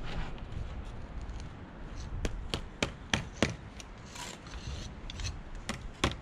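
Sharp taps and knocks of masonry work on stone blocks: a quick run of about five taps a little over two seconds in, a softer scrape, then a few more taps near the end.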